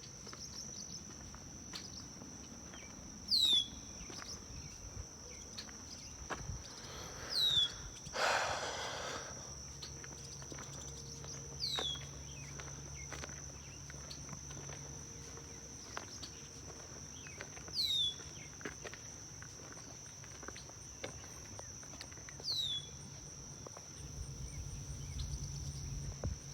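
Steady, high-pitched chorus of insects, with a bird giving a short falling whistle about every four to five seconds. A brief rustle comes about eight seconds in.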